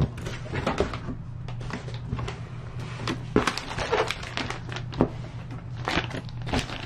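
Cardboard box being opened by hand, with its flaps scraping and knocking and a plastic parts bag rustling as it is pulled out: an irregular run of short clicks and crinkles.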